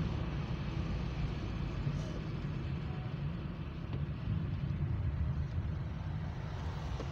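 A car driving slowly on a town road: a steady low rumble of engine and road noise.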